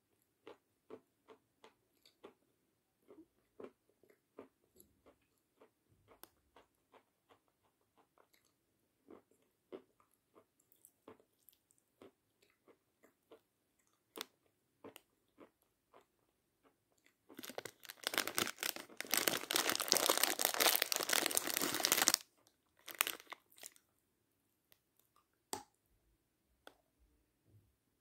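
Close-up chewing of pieces of chalk sold as Kramatorsk "crackers": soft, scattered crunches and mouth clicks, with a loud run of dense crunching about two-thirds of the way through.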